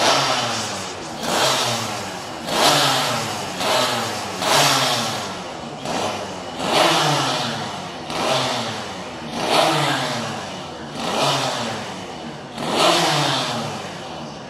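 1982 Honda RS125RW's 125 cc single-cylinder two-stroke racing engine being blipped, about eleven sharp revs in a row, the pitch dropping back after each one.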